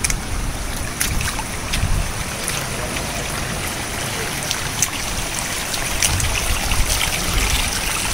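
Shallow stream of water trickling and running over rocks, a steady rushing hiss, with scattered sharp clicks and knocks through it that are typical of footsteps in flip-flops on wet stones.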